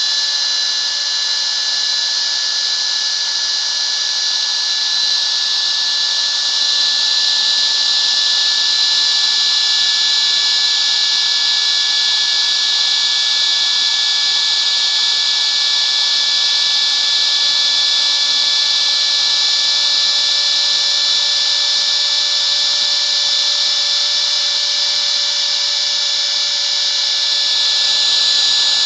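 Compact router used as a CNC spindle, running with a steady high whine while its bit cuts a groove in a thin wooden board.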